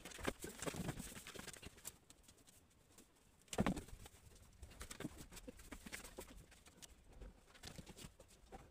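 Faint scattered footsteps, hoof steps and rustling on a straw-covered floor as a person and cattle move about, with one louder dull thump about three and a half seconds in.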